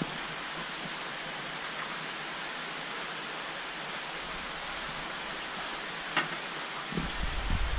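Steady rushing hiss of moving water, with a low rumble coming in near the end.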